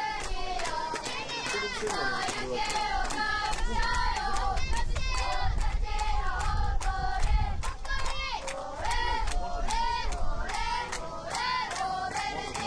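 A group of young voices chanting and singing in unison, with steady rhythmic clapping at about three claps a second.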